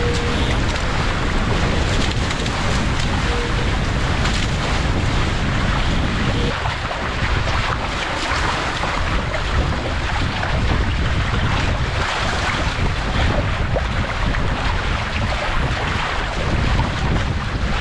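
Wind buffeting the microphone and water rushing past the hulls of a Paper Tiger catamaran under sail, a loud steady rush.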